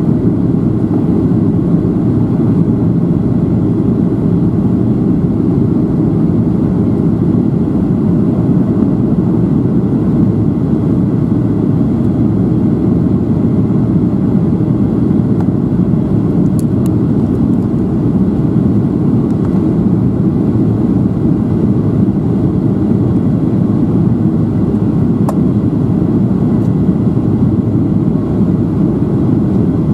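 Steady cabin drone inside a Boeing 737-700 heard from a seat over the wing: the CFM56-7B engines and the rush of air along the fuselage during the descent toward landing.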